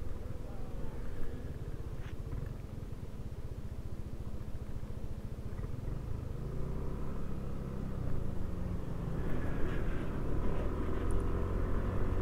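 Yamaha NMAX 155 scooter's single-cylinder engine running at road speed, with wind rumble on the microphone. The sound grows louder from about nine seconds in.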